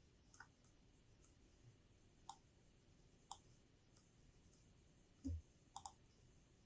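Faint, scattered clicks of a computer mouse and keyboard, with a soft low thump about five seconds in, then a quick double click; otherwise near silence.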